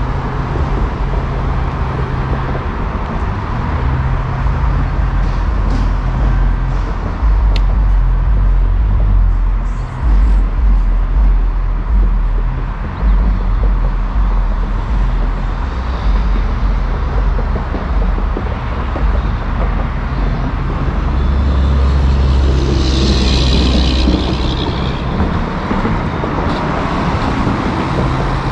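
Road traffic on a concrete bridge close by: a steady low rumble of cars and heavier vehicles passing, with one louder pass near the end.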